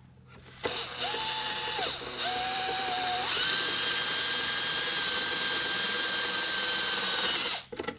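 Power drill boring a shallow hole into a wooden board. It runs twice briefly at a lower speed, then speeds up about three seconds in and runs steadily at a higher whine before stopping near the end.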